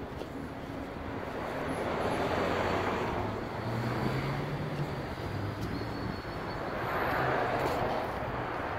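Street traffic: a steady hum of city traffic, with vehicles swelling up as they pass, once about two seconds in and again about seven seconds in.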